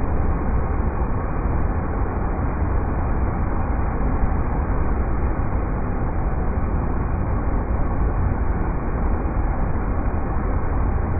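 River rapids rushing in a steady, unbroken roar of water, deepest at the low end and muffled.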